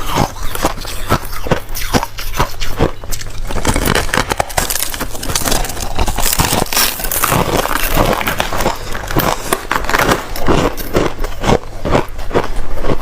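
White crushed ice being bitten and chewed close to the microphone: loud, sharp crunches, a few a second at first and coming thicker and faster after about four seconds.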